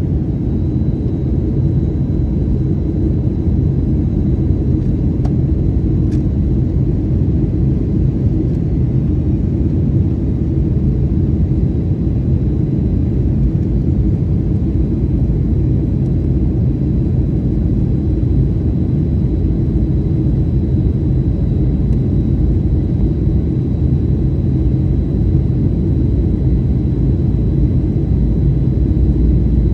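Steady low rumble of a Boeing 737 in flight, heard from inside the passenger cabin: engine and airflow noise, with a faint steady high whine above it.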